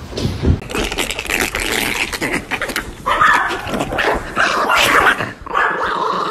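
A dog yipping and whining in several stretches with a wavering pitch, starting about three seconds in. Before that, rustling and knocking.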